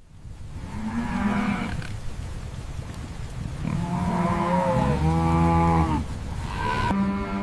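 Cattle mooing: about four long, drawn-out moos, one of them deeper than the others, over a low rumble.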